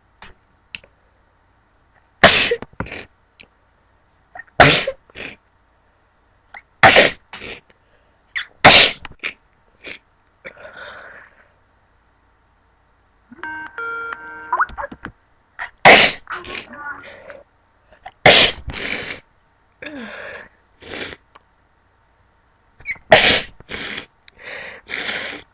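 A woman sneezing again and again: about seven loud sneezes with softer sneezes and breaths between them. Midway, a short electronic tone pattern sounds during a pause.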